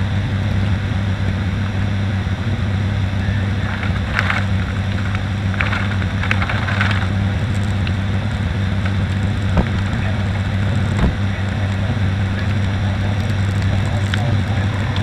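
Steady cockpit drone of the ATR 72-600's twin turboprops (Pratt & Whitney PW127M engines with six-blade propellers) in flight, a strong low hum over a rushing airflow noise. Two short clicks come about ten and eleven seconds in.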